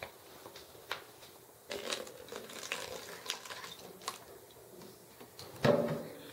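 Hydrogen peroxide being poured from a plastic jug into a plastic water bottle, the liquid running in for a few seconds with small clicks of plastic handling. Near the end the jug is set down on the wooden table with a thump, the loudest sound.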